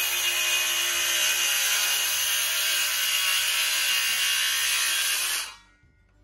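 Handheld circular saw running through a wooden board, a steady motor whine under loud cutting noise, which stops abruptly about five and a half seconds in.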